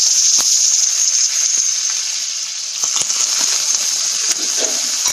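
Ginger and green chilli strips sizzling in a very hot wok, a loud steady hiss of steam with a few sharp crackles. The hiss eases slightly partway through and swells again about three seconds in.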